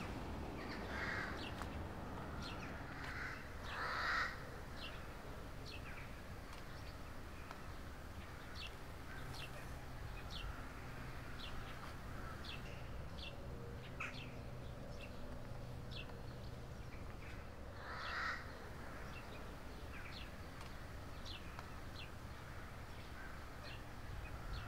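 Birds calling: a few harsh caws, loudest about four seconds in and again near eighteen seconds, among many short, high chirps.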